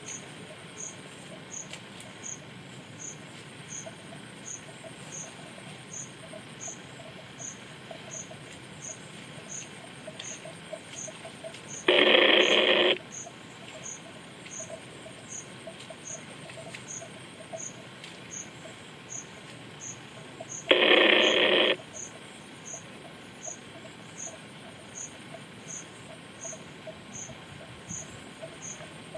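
Insects chirping in a steady high-pitched rhythm, about two pulses a second. Twice, about twelve and twenty-one seconds in, a much louder steady tone lasting about a second cuts in and stops abruptly.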